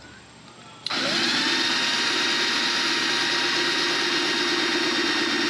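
Power drill starting about a second in, its motor whine rising quickly and then running steadily as the bit grinds into a ceramic pot.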